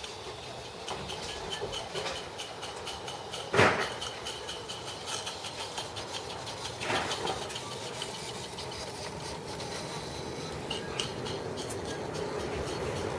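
A 16mm-scale Roundhouse Silver Lady live steam locomotive running past on garden-railway track, with rapid ticking and clicking from its running and wheels on the rails. A sharp knock comes about three and a half seconds in and a weaker one about seven seconds in.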